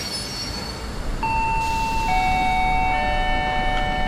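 Railway station public-address chime: three descending notes struck about a second apart, each ringing on under the next, heralding a platform announcement. A steady low rumble of the platform and train lies beneath.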